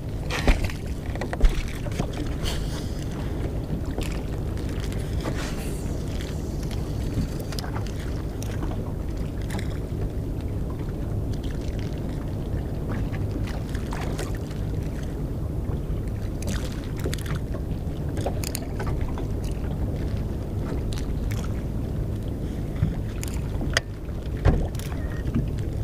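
Boat motor running steadily, with scattered light knocks.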